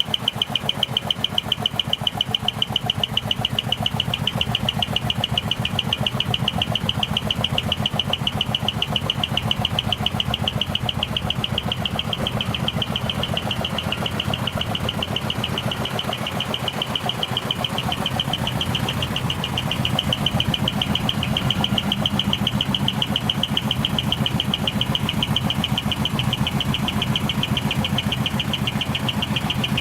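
Large diesel truck engine idling with a fast, even exhaust pulse.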